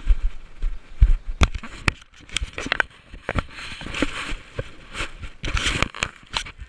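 Handling noise from a hand-held GoPro Hero 1 camera in an open skeleton housing as it is swung about: irregular sharp clicks and knocks with scraping rustles, and low thumps near the start.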